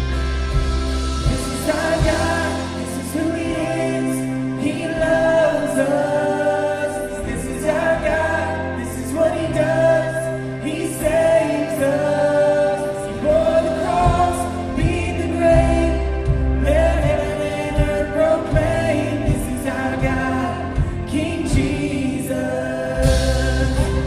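Live contemporary worship band playing, with several voices singing together over guitars, bass and drums, picked up by a recorder in the room. The singing comes in about two seconds in and carries on until near the end.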